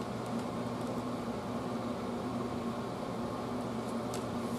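Room air conditioner running steadily: an even hiss with a constant low hum.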